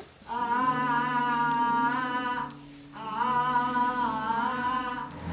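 Wordless humming of a slow tune in two long, held phrases, with a break for breath about two and a half seconds in.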